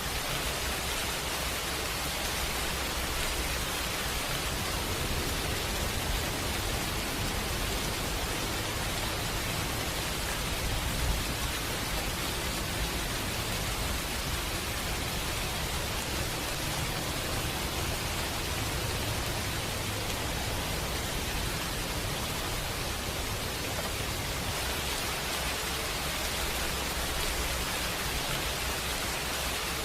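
Steady rain, an even unbroken hiss with a low rumble beneath it.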